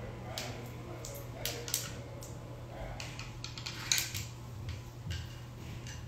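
Handling noise: scattered light clicks and taps, irregular and a few every second, over a steady low hum.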